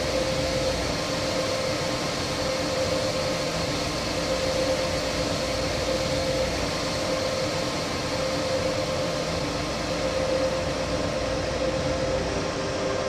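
DB class 146 electric locomotive with a double-deck coach train: a steady hum and noise with a constant pitched whine. About a second before the end, a new, lower whine comes in.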